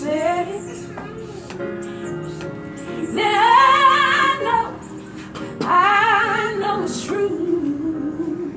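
A woman singing solo, holding long notes with a strong vibrato; the two loudest held phrases come in the middle, with a softer line trailing off near the end.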